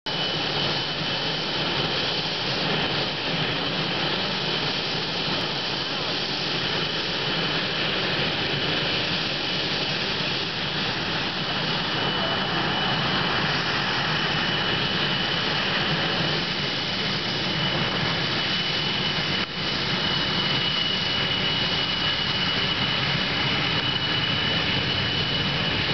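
CF-18 Hornet's twin General Electric F404 turbofans running as the jet taxis, a steady jet noise with a high turbine whine held at one pitch.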